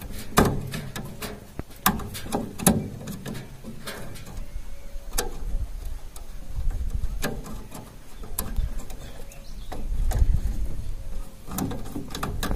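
Irregular small clicks, taps and scrapes of a screwdriver and wire being worked into a terminal screw on a motor starter contactor, as the terminal is tightened onto the wire.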